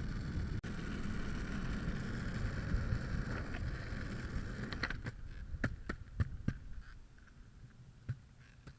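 Skateboard wheels rolling on asphalt: a steady rumble with a hiss above it. About five seconds in the rolling noise drops away and a run of sharp clicks follows, several within a second or so and two more near the end.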